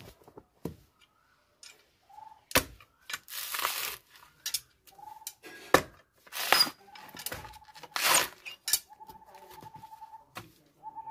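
A blade chopping into a coconut husk in a few sharp knocks, and the fibrous husk tearing and being pulled away from the nut in several short rasping bursts. A thin steady tone sounds several times between them.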